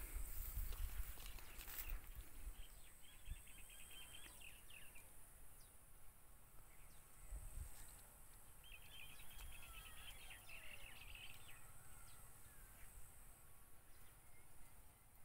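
A small bird gives a rapid trill twice, each lasting one to two seconds, over faint outdoor background noise. A low rumble of wind or handling runs through the first two seconds.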